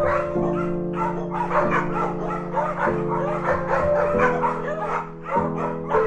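A small dog yipping rapidly, many short high barks in a row, over background music with sustained chords.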